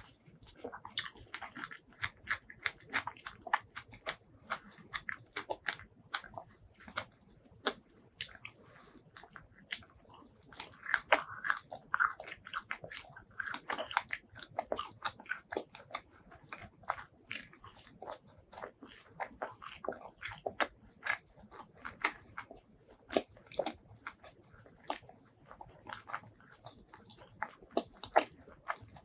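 Close-miked eating: a person biting and chewing, with dense, irregular wet clicks and crunches.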